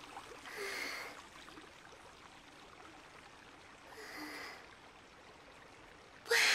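Hot-spring water trickling steadily, with two soft sighs from a girl soaking in it, about a second in and again about four seconds in. A voice starts speaking near the end.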